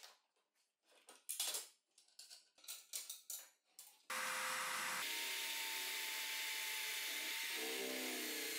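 A few light clicks and knocks as the aluminium carriage fence is handled and lifted off, then, about four seconds in, a drill press starts running and its bit drills into an aluminium angle fence: a steady whir with a thin whine.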